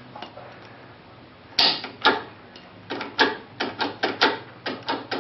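Spring-loaded pull handle of a cable-operated emergency door release being worked by hand, clicking against its spring. There is one sharp click about a second and a half in and another shortly after, then a quick run of clicks, several a second, in the second half.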